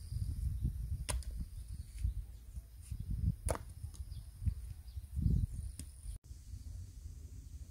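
Garden hoe striking stony soil: two sharp strikes about two and a half seconds apart, over a steady low rumble.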